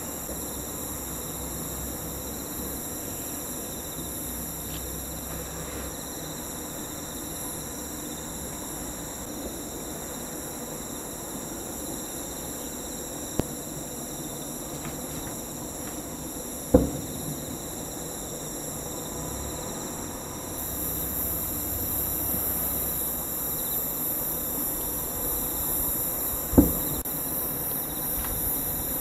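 Steady high chorus of night insects, which grows louder in the second half, with two distant aerial firework shells bursting as dull booms about ten seconds apart.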